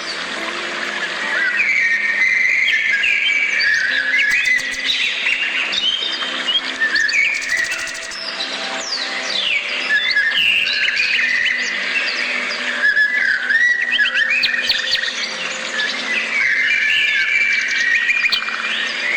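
Several birds singing at once: a dense chorus of overlapping chirps, whistles and quick trills, with a faint low hum beneath.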